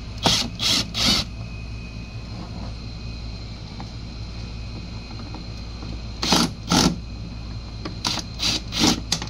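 Power screwdriver backing screws out of a moped's plastic body panels, run in short bursts: three quick bursts at the start, two about six seconds in, and four close together near the end.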